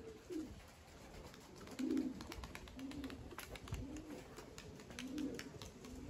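Domestic pigeons cooing faintly: about five short, low coos spread through, with a few light ticks.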